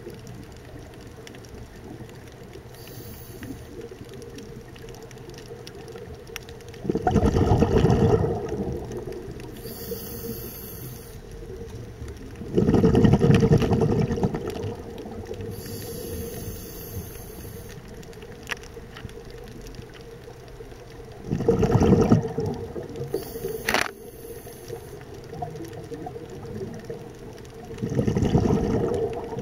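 Scuba diver breathing through a regulator underwater: four loud bubbling exhalations several seconds apart, with faint high hisses between them.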